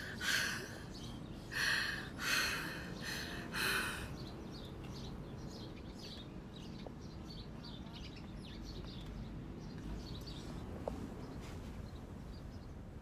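A few short breathy cries from a person in the first four seconds, then a steady outdoor background with faint bird chirps.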